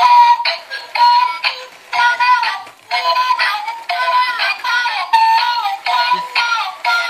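Knock-off plush toy dog singing a song in Chinese through its small built-in speaker: a thin electronic melody with a synthetic voice, in short phrases and with no bass.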